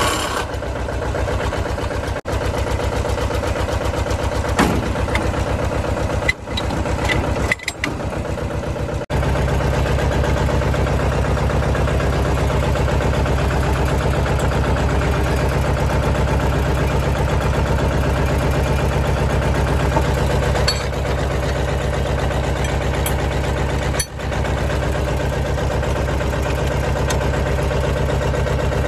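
Small Mahindra tractor's diesel engine idling steadily, its note turning deeper and fuller about nine seconds in.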